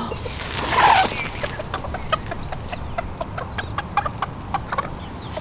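Chickens clucking, with short repeated clucks from several birds. A louder rustle of tent fabric comes about a second in.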